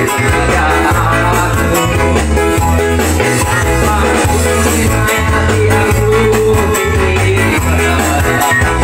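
Upbeat Iban pop dance song: a steady, pulsing bass beat under a held melody line.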